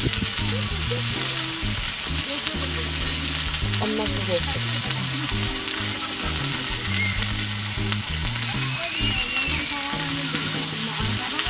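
Beef slices sizzling on a small cast-iron grill plate over a mini brazier: a steady hiss of meat frying in its own fat.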